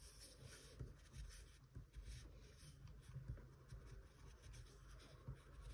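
Faint scratching of an oil pastel stick drawn across paper in short strokes, outlining a drawing.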